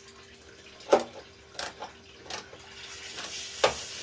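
Screwdriver working a terminal screw on a breaker box's ground bar to clamp a ground wire: a few sharp, small metal clicks and scrapes, spread out. A steady hiss comes in near the end.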